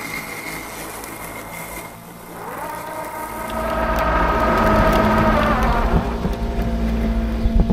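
Yardcare M800 Plus robotic mower's electric motors whining: the whine climbs in pitch about two and a half seconds in, holds steady, then winds down near six seconds, over a low rumble from the mower body.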